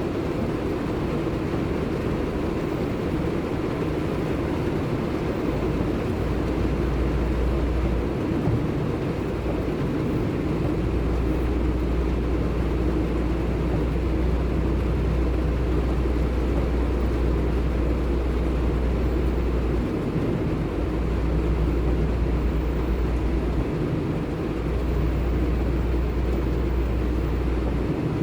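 Car driving in heavy rain: steady road and rain noise, with a low rumble that drops out and returns several times.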